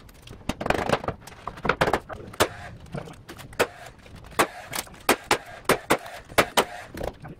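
An irregular series of sharp knocks and clicks, sometimes two or three a second, from hands and tools working wooden stair risers and treads into place.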